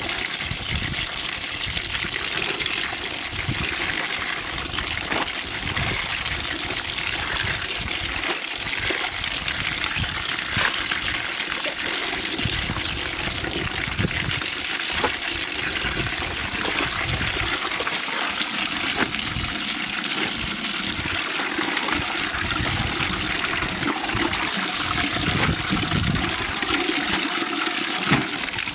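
A stream of water pouring steadily into a plastic bucket while clothes are sloshed and wrung in it by hand, with small splashes throughout.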